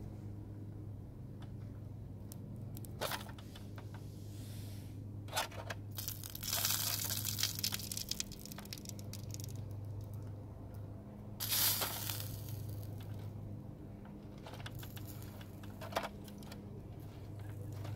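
A fork clicking and scraping against a charcoal grill's wire-mesh grate as meat patties are lifted and turned: a few sharp clicks and two longer noisy scrapes, one near the middle and one about two-thirds through, over a steady low hum.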